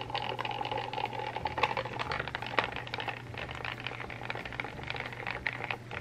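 Mini beauty blender washing machine running with a small makeup sponge and soapy water in its drum: a steady small-motor hum with light rattling clicks. It is struggling with the load.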